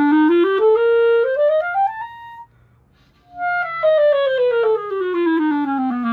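Single-reed clarinet playing a quick rising run of notes up about two octaves. After a short break it plays a long descending run down toward its low register.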